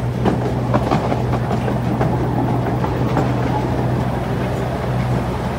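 Miniature park train running: a steady low engine hum and rumble, with a few sharp clicks in the first second.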